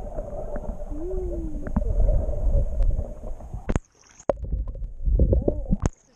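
Muffled underwater rumble and gurgling of water around a submerged action camera's waterproof housing. It cuts off suddenly a little under four seconds in as the camera breaks the surface, churns and splashes again, then drops away near the end once the camera is out of the water.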